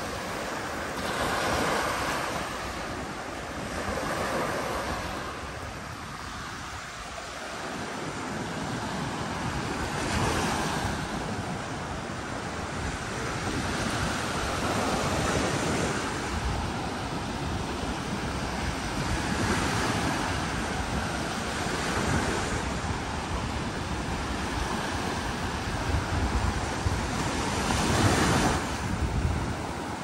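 Sea waves washing onto a sandy beach, the surf swelling and falling back every few seconds, with wind buffeting the microphone.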